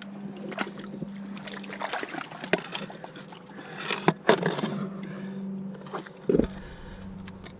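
Water sloshing with scattered knocks and clatter of dock repair work, a sharp knock about four seconds in and a dull thud a little past six seconds, over a steady low hum.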